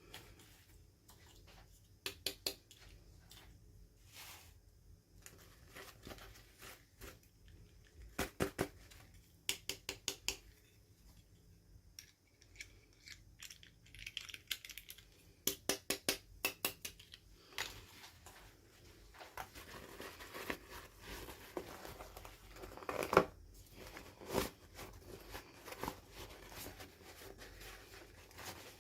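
Toy packaging being handled and opened by hand. First come clusters of sharp little plastic clicks and taps, then, from about two-thirds of the way in, a continuous crinkling rustle of wrapping with a couple of louder clicks.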